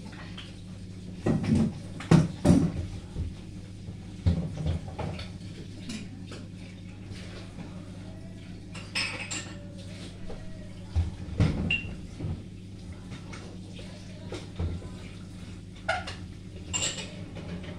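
Dishes and utensils clinking and clattering now and then as they are handled, with a steady low hum underneath.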